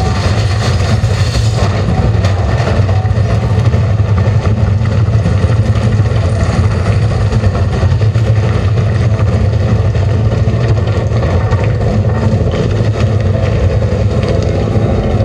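A loud, steady, engine-like rumble from the projection show's sound system, with a thin tone coming in near the end.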